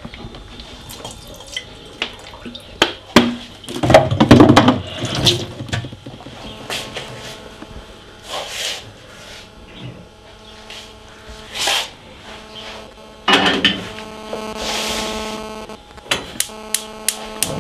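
Kitchen clatter as a large steel stockpot of raw milk is handled and set down, with knocks and liquid sloshing. Near the end a gas stove's spark igniter clicks rapidly, about three times a second, over a steady hum, as the burner under the milk pot is lit for heating.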